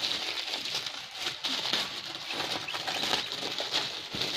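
Crinkling and rustling of thin plastic packaging as a pack of balloons in a clear plastic bag is handled: many small irregular crackles over a steady high hiss.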